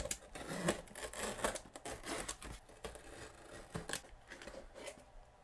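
A knife blade slicing along the taped seam of a cardboard box: a run of scratchy, crackly cutting strokes with small clicks, fading out near the end.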